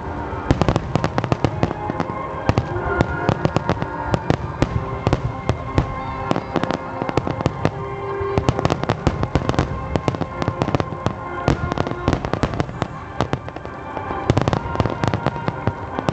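A dense fireworks barrage: shells bursting in rapid, overlapping bangs and crackles, many a second, with no let-up, over music played through loudspeakers.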